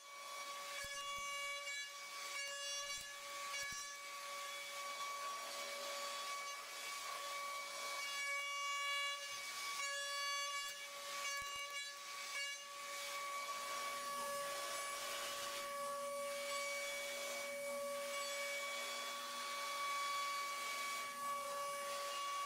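CNC milling machine's high-speed spindle running and cutting aluminium: a steady high whine, with rougher cutting noise that comes and goes through the first half.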